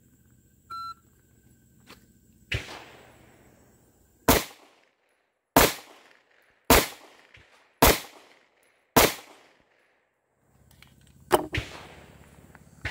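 A short electronic shot-timer beep, then a string of five loud semi-automatic pistol shots about a second apart, each cracking and echoing briefly. A softer bang comes a couple of seconds before the string, and two more sharp bangs come near the end.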